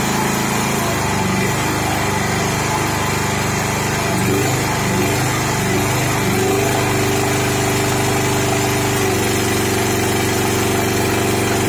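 Sakura Storm D9000E portable generator engine running steadily while load-bank steps are switched on. Its note wavers and then settles lower as the engine slows under the added load, output frequency sagging from about 54 Hz to under 48 Hz at about 34 A.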